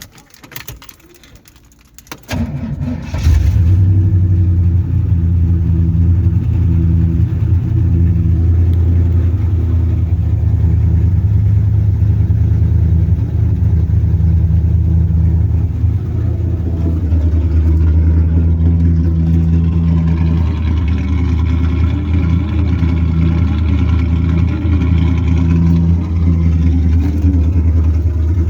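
Third-generation Camaro's 305 TPI V8 cranking briefly, catching about two seconds in, and then running steadily. The engine is starting and running after a crank-no-start fault was fixed.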